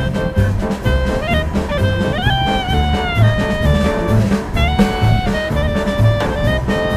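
Instrumental background music: a jazzy tune with a held, sliding melody line over a steady bass and drum beat.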